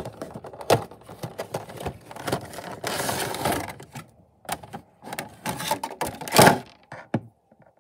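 Funko Pop packaging being opened by hand: the cardboard box handled and the clear plastic insert around the vinyl figure pulled out and apart, a busy run of crinkling, clicks and scrapes. A denser crackling spell comes about three seconds in and the loudest crinkle a little past six seconds.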